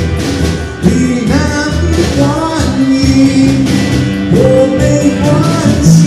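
Live rock band playing loud, with electric guitars and drums over a steady beat and sliding pitched lines.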